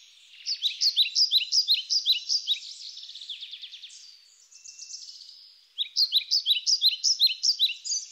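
Small songbird singing: two bouts of quick, repeated chirping notes, the first about half a second in and the second about six seconds in, with a fainter trill between them.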